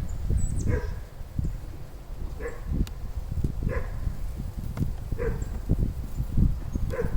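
An animal calling five times, a short pitched call about every one and a half seconds, over low wind rumble on the microphone.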